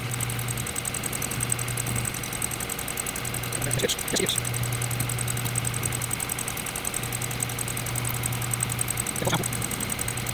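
South Bend 9A lathe running with an end mill in the spindle, milling a brass elbow blank held in the milling attachment: a steady motor hum with a thin high whine above it. Brief sharper sounds come about four seconds in and again near the end.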